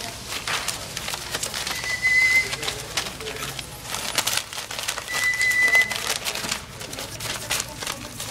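Long-haired Chihuahua puppies scrambling over newspaper in a wire playpen: paper rustling, claws scratching and the wire pen rattling in irregular bursts. A short, steady high whistling tone sounds three times, about every three to four seconds.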